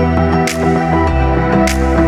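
Background electronic music: sustained synth tones over a deep bass, with a sharp percussive hit about every 1.2 seconds.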